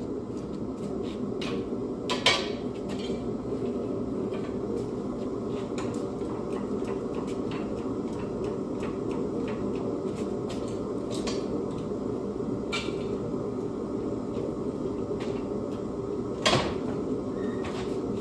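Scattered metal clinks and clanks from work on a car's engine cradle and the engine in it, with two sharper clanks, about two seconds in and near the end, over a steady low hum.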